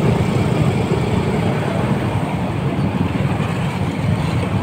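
Steady road traffic noise from close range: motorbike and car engines running in slow traffic.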